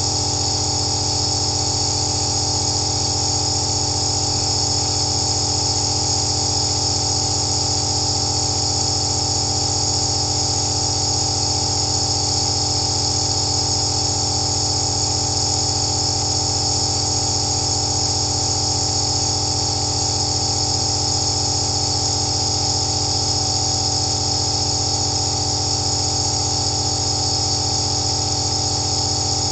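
Compressor nebulizer running steadily while in use: a continuous motor hum with several steady tones under a high, airy hiss of mist leaving the mask.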